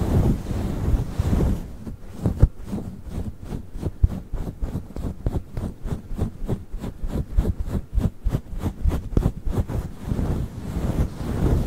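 Fluffy microphone cover rubbed and stroked directly on the microphone: a low muffled rustle, then quick, even strokes about four or five a second from about two seconds in until near the end.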